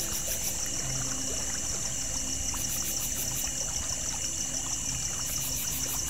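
Creek water trickling steadily under a shrill, continuous chorus of night insects, with a short run of quick high chirps every couple of seconds.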